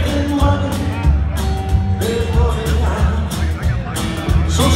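Live band playing a song: acoustic guitar, upright bass and drums with regular beats, and a man singing.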